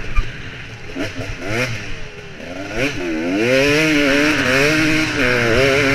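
Motocross bike engine heard from an onboard camera. There is a thud just after the start, then the engine runs mostly off the throttle with short blips. About three seconds in it is opened up and revs hard, its pitch rising and falling, with wind rushing over the microphone.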